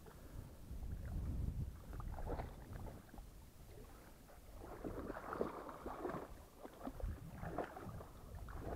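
Two dogs wading in a shallow pond, the water splashing and sloshing around their legs in irregular bursts.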